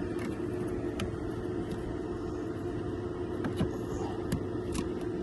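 A vehicle running steadily with an even hum, with a few light clicks scattered through it.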